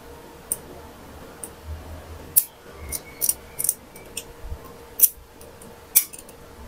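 About ten sharp metallic clicks, irregularly spaced, as a small coil spring is worked along a short metal shaft from an Epson L121 printer's paper feed by hand with a thin tool.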